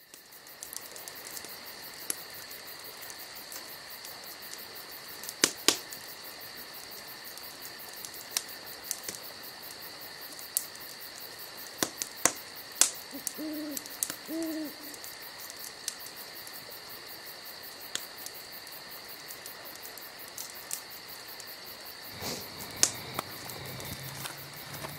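Night-time ambience: insects trill steadily throughout, with scattered sharp pops and clicks. An owl hoots twice about midway through, and a low hum comes in near the end.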